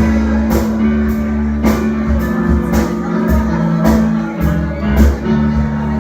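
Church band playing an upbeat gospel groove, with bass, keyboard or organ chords and regular drum and cymbal hits.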